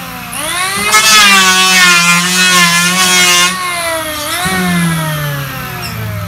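Handheld electric planer running and cutting a Dutch teak (jati belanda) board: a hissing shave of the blades over the motor's whine from about a second in until past the middle, then the motor's pitch sags and falls steadily as it winds down near the end.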